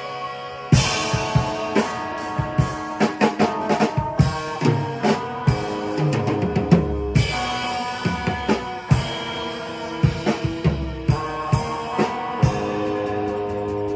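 A rock band is playing a song part: electric guitar chords ring over a drum kit with kick, snare and cymbal hits. There is a brief lull at the start, then a big hit comes in a little under a second in.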